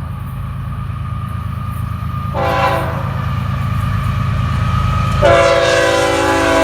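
Freight locomotive air horn sounding a short blast about two seconds in, then a long blast that begins near the end, over the steady low rumble of the passing diesel train.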